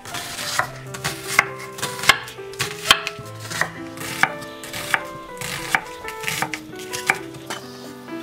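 Chef's knife chopping onion on an end-grain wooden cutting board: sharp knocks of the blade on the board, about two a second, keeping a steady rhythm.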